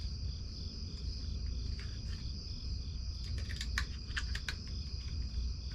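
Crickets chirping steadily in the evening background, a constant high trill. A handful of light, sharp clicks about three to four seconds in, from small plastic parts being handled.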